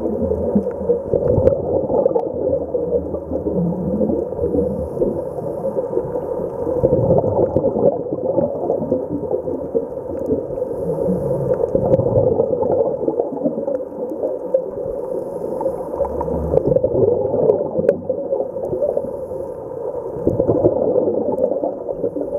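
Muffled underwater rumble and gurgle of scuba divers' exhaled regulator bubbles, swelling about every four to five seconds with each breath.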